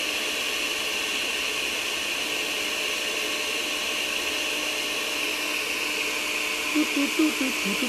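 Electric countertop blender running steadily, its motor whirring as it purées a small batch of nettle pesto in a large jar. A few short wavering sounds rise over the whir near the end.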